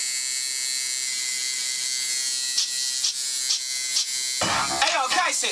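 Electric tattoo machine buzzing steadily, with a few sharp clicks near the end. About four seconds in, loud music with a beat and turntable-style scratching starts playing over it.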